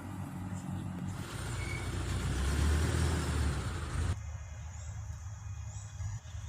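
Split air conditioner's outdoor unit running: a steady low hum from the compressor and the spinning condenser fan, with a rush of noise that swells in the middle and drops away suddenly about four seconds in.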